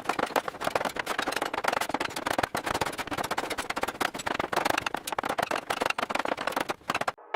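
Construction work noise: a dense, rapid clatter of knocks and clicks that cuts off suddenly near the end.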